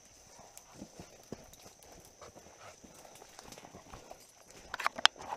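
Footsteps hurrying through dry leaf litter and underbrush, with leaves and twigs rustling and brushing past. A few sharp, loud cracks come close together near the end, like sticks snapping underfoot.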